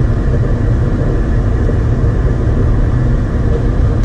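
Steady low rumble of airflow and engine noise inside an airliner's cockpit on final approach, with a few faint steady hums over it.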